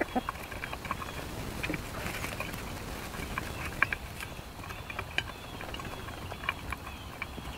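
Hens pecking at scattered grain feed on the ground: many quick irregular taps and clicks of beaks, with a few short, soft calls.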